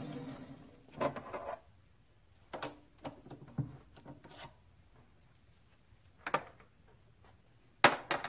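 A Grizzly G9972Z benchtop metal lathe's motor hum dies away in the first half second as the machine stops. After that come scattered clicks and knocks of tools and parts being handled at the lathe, with two sharp knocks close together near the end.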